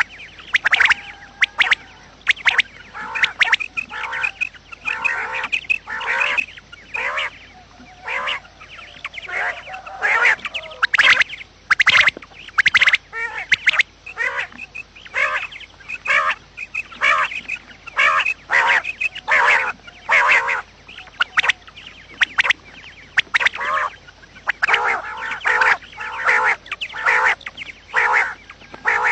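Quail calling over and over: a rapid, dense run of short, sharp calls, several a second, with brief gaps between bouts.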